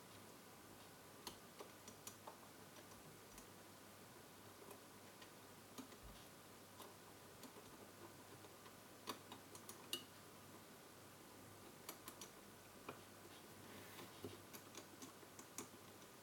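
Faint, irregular small clicks and taps of a screwdriver and screw on metal as an amplifier chip is being screwed to a radio's heatsink, over a low steady hum.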